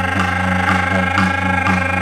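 Didgeridoo playing a steady low drone that pulses in rhythm, with held overtones above it and a sharp tap about twice a second, accompanying a dance.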